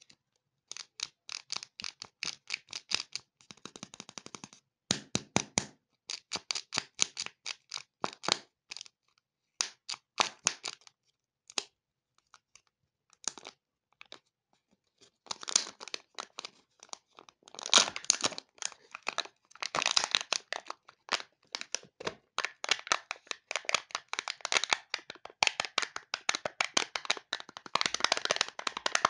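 Crackling and crinkling of Kinder Joy egg packaging handled up close: the film wrapper being unwrapped and torn, and the foil lid being peeled off the plastic half-shell. Many sharp crackles come in quick runs with short pauses, thickest about halfway through and again near the end.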